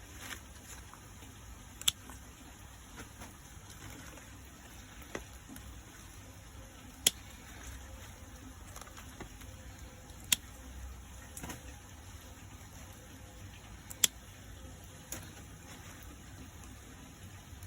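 Sharp single snaps as small purple aubergines are picked from their plants: four loud ones a few seconds apart, with fainter ones between, over a low steady rumble.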